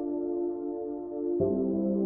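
Soft ambient background music of long held chords, changing to a new chord about one and a half seconds in.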